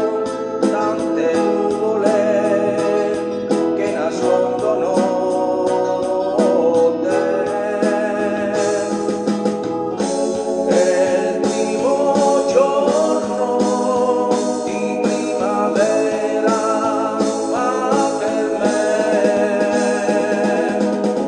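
A man singing into a handheld microphone over an instrumental backing track with keyboard and a steady beat.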